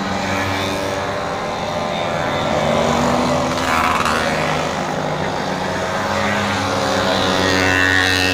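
A stream of small two-stroke mopeds and motorcycles buzzing past one after another, several engines running at once at different pitches, some rising and falling as riders pass.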